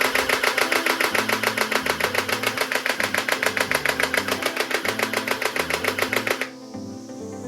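Toy gun firing on full-auto: a loud, even rattle of about nine clicks a second that stops suddenly about six and a half seconds in. Background music plays underneath.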